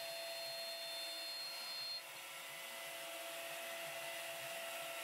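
Avid Pro 4848 CNC router's spindle running steadily as its bit cuts a circular groove into HDPE plastic, a steady whine over the hiss of a vacuum hose held at the cut. The highest tone drops out about two seconds in.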